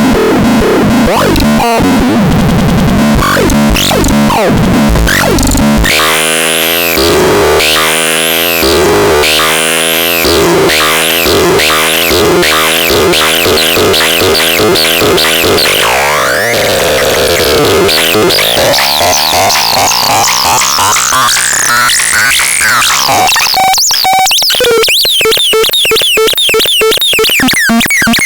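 Loud, harsh electronic synthesizer noise: dense shifting tones with fast repeated chirps and pitch sweeps. A tone dips and then rises steadily for several seconds, and near the end the sound breaks into a rapid stuttering pulse.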